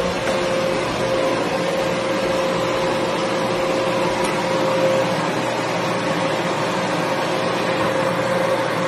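An air blower running steadily: a rush of air with a steady whine.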